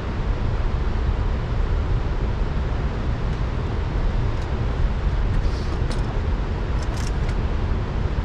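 Wind buffeting the microphone: a steady low rumbling noise, with a few faint clicks about five to seven seconds in.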